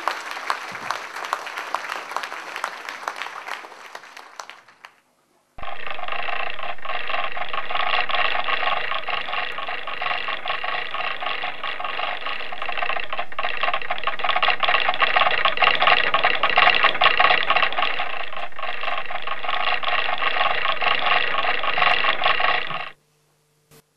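A dense crackle fades out over the first four seconds. About five and a half seconds in, a whirring, rattling machine sound effect, the sketch's time machine, starts abruptly, runs steadily for some seventeen seconds and cuts off suddenly.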